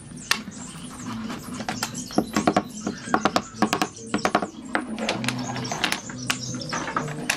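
Small diamond-shaped wooden parquetry pieces clicking and knocking against one another as they are set into place by hand, many quick sharp taps in irregular clusters.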